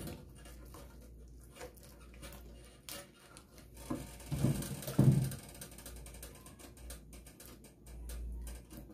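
Wooden spoon stirring thick, lumpy flour-and-water paste in a metal pot: a run of small clicks and scrapes of the spoon against the pot, with a few louder, heavier knocks and squelches about four to five seconds in.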